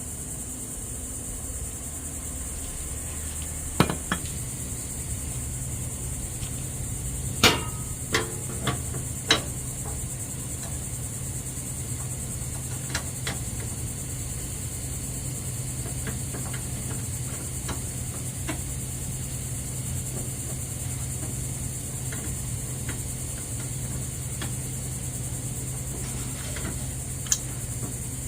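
Scattered sharp metallic clinks of hand tools against the mower's pedal bolts and bracket, with a quick cluster about seven to nine seconds in and one more near the end, over a steady high-pitched background drone and a low hum.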